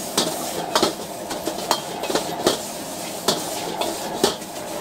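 Metal ladle clanking and scraping against a steel wok as noodles are stir-fried, a sharp clank every half second or so over a steady hiss.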